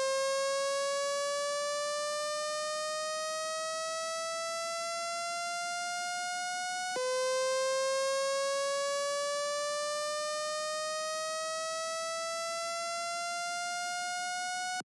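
Fire alarm voice evacuation system sounding its alarm tone: a pitched tone that sweeps slowly upward, drops back and sweeps up again about seven seconds in, then cuts off abruptly just before the end.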